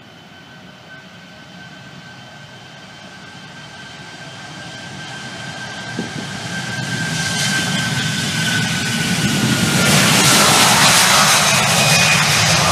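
Jet engines of a twin-engine wide-body airliner at takeoff power on the takeoff roll, a steady roar with a high whine, growing steadily louder as the aircraft accelerates toward and past the listener. The whine's pitch dips slightly about nine to ten seconds in as it goes by.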